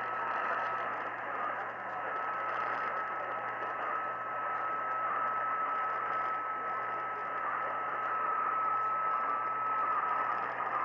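AM radio static and hiss from a weak, distant station signal, with a steady high whistle tone running through it.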